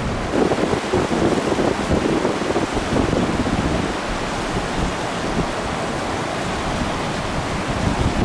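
Hurricane wind gusting hard against the microphone, over the rush of storm-surge floodwater pouring past.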